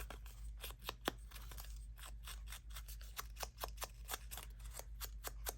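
Ink pad dabbed and rubbed along the edges of a paper piece: a run of short, irregular taps and scuffs, a few each second.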